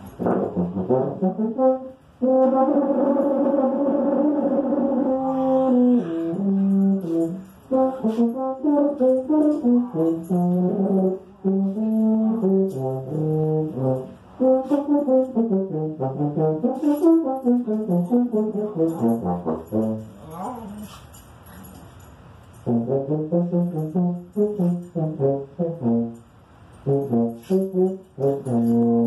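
Tuba playing a melody: a long held note near the start, then a run of shorter notes, softer for a few seconds about two-thirds through before picking up again.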